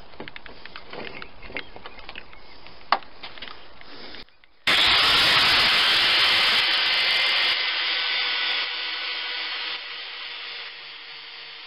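A few light clicks and knocks of tool handling. About four and a half seconds in, a Titan angle grinder comes in abruptly, loud, grinding the clamped mild steel piece. Its level falls away in several steps toward the end.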